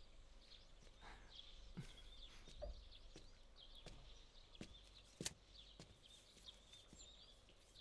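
Faint small birds chirping over and over in the background, with a few soft taps, the sharpest about five seconds in.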